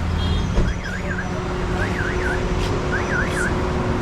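Electronic vehicle siren warbling in quick falling-and-rising chirps, two or three at a time about once a second, over busy street traffic.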